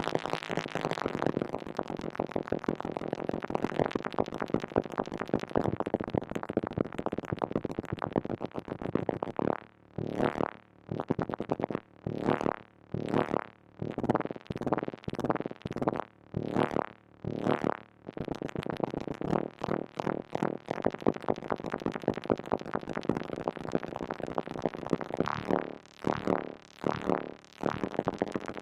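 Moog Mother-32 analog synthesizer modulated by a Comdyna GP-6 analog computer running the Lorenz chaos equations: a dense, ever-changing stream of rapid synth notes. About a third of the way in, it breaks into separate bursts with short silences between them, and it runs dense again later.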